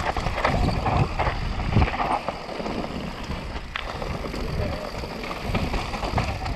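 Mountain bike descending a dry, dusty dirt trail at speed: wind on the microphone, tyres running over loose dirt and stones, and scattered knocks and rattles from the bike over bumps.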